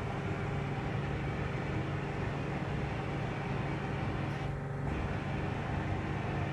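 Vapour blasting gun spraying a water-and-abrasive slurry under compressed air onto a Volkswagen 020 gearbox casing: a steady hiss over a constant low hum. The hiss briefly drops away about four and a half seconds in.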